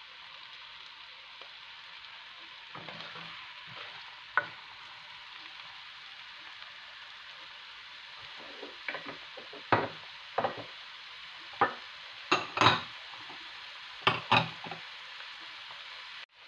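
Chopped onions, garlic, green onions and red bell peppers sizzling steadily in hot oil in a nonstick frying pan. Over the second half a spatula knocks and scrapes against the pan in a series of sharp strokes.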